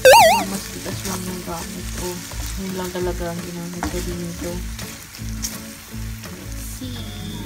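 Battered chicken pieces sizzling in a sticky glaze in a frying pan, stirred and turned with tongs, under background music. A loud warbling sound effect opens it and cuts off within half a second.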